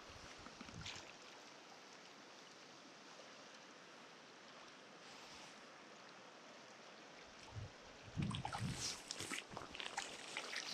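Faint, steady rush of river current. About three seconds before the end, louder irregular splashes and knocks start close by as a landing net is worked in the water.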